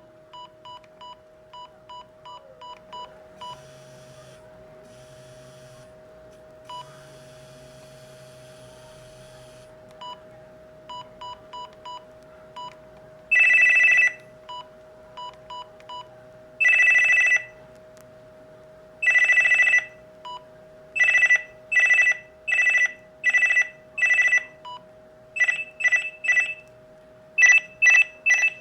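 Panasonic GD75 mobile phone: runs of short key beeps, a few seconds of low buzzing, then loud electronic ringtone tones, first as long held notes and then as quick rhythmic beeping patterns.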